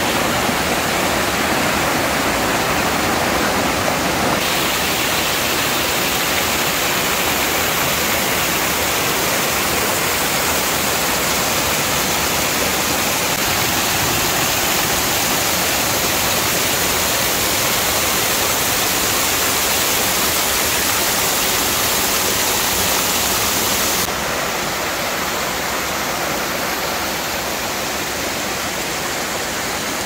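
Waterfall: loud, steady rushing of falling water. The tone shifts a few seconds in, and the sound turns a little quieter later on, as the view changes.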